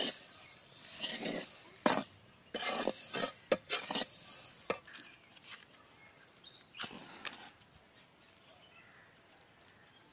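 A metal spatula scraping and stirring dry ragi flour in an aluminium kadai: a run of rasping strokes with a few sharp knocks against the pan, stopping about five seconds in. After that, only faint outdoor background with a couple of light clicks.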